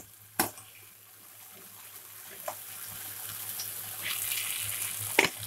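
Gravy sizzling in a wok while manchurian balls are stirred through it with a perforated ladle. The sizzle grows louder over the last few seconds, and the ladle knocks against the pan once near the start and once near the end.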